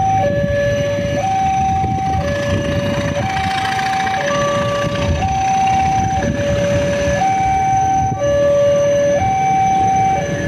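Railway level-crossing warning alarm sounding alternating high and low tones, about a second each, as a train approaches. Beneath it is the low rumble of an approaching diesel locomotive working hard and smoking heavily.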